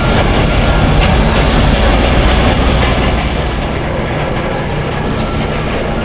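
Loud, steady construction machinery noise with a low rumble and a few faint clanks, easing slightly about halfway through.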